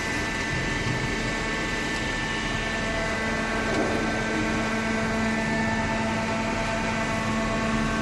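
Hydraulic cardboard baler running, a steady machine hum with several constant whining tones from its motor and pump.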